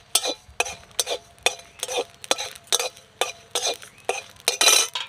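A flat metal spatula scraping and stirring in an aluminium kadai, dry-roasting whole red chillies and cumin seeds, in short rhythmic strokes about two to three a second, with one longer, louder scrape near the end.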